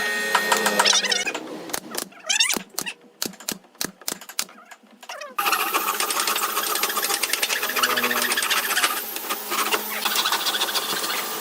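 A few sharp knocks, then from about five seconds in an electric power tool's motor runs steadily with a fast, buzzing pulse.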